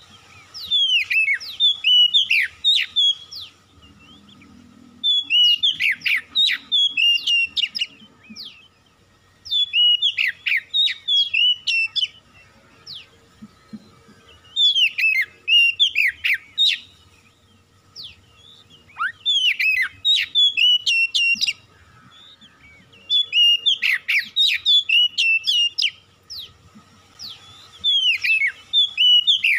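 Oriental magpie-robin singing: bursts of loud, varied whistled phrases with quick sweeping notes, each burst two to three seconds long, repeated about every four to five seconds.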